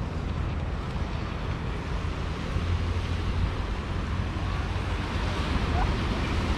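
Wind rumbling steadily on the microphone, over a steady wash of sea surf breaking on the beach below.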